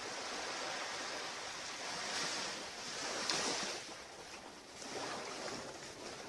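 Ocean surf washing onto a beach, rising and falling in swells.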